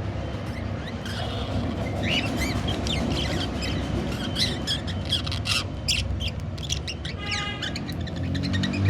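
Budgerigars chirping and squawking in a busy run of short, high calls that thicken towards the middle, over a steady low rumble.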